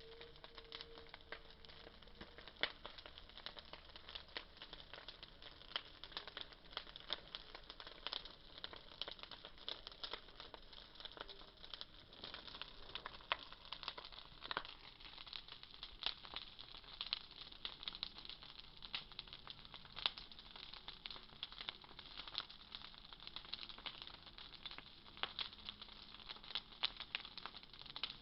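Bonfire crackling: a dense, irregular run of sharp pops and snaps from the burning wood.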